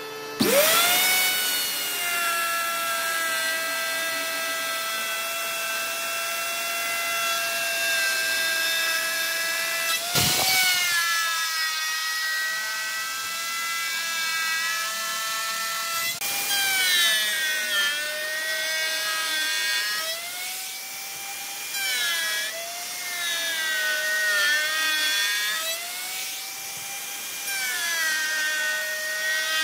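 Electric plunge router running with a high, steady whine as its straight bit cuts grooves and notches in pine boards. It spins up right at the start, and in the second half its pitch dips and recovers again and again as the bit bites into the wood.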